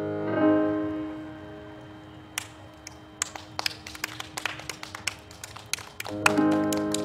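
A sustained instrumental chord is struck again and rings away over about two seconds. Scattered hand claps from a few people follow, and another chord comes in about six seconds in.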